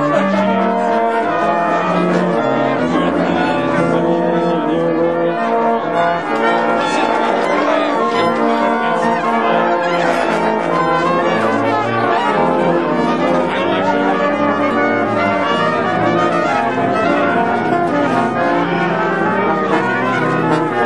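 Brass-led music, with trombones and trumpets playing full held chords that change every second or so.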